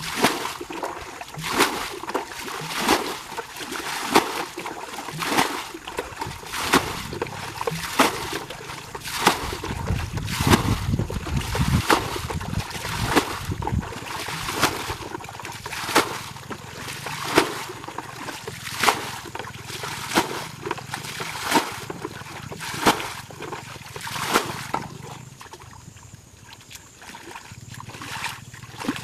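Blue plastic bucket bailing muddy water out of a shallow ditch, a scoop and splash of thrown water about every second and a half. The splashing stops a few seconds before the end.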